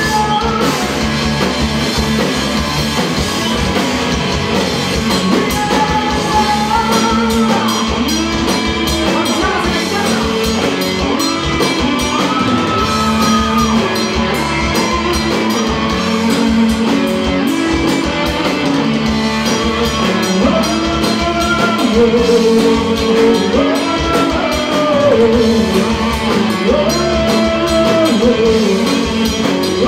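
Rock band playing live: a singer over guitar and drums.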